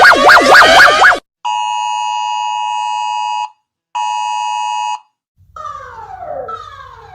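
A sequence of emergency alert alarm sounds. A loud, fast warbling siren cuts off about a second in. Then a steady electronic alert tone sounds twice, for about two seconds and then about one. From about five and a half seconds, a tone glides downward, repeating about once a second over a low hum.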